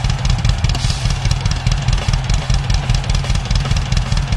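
Heavy metal band playing live: thick distorted sound over fast, steady, pounding drums.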